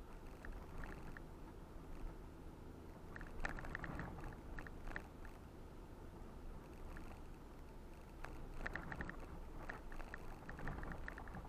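Ford Bronco driving off-road, heard from inside the cabin: a steady low rumble from the engine and road, with clusters of rattles and clicks about three to five seconds in and again near the end.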